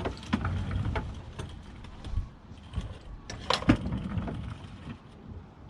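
Hand tools clinking and knocking on metal during mechanical work, a series of irregular clicks and clanks with a loud knock about three and a half seconds in.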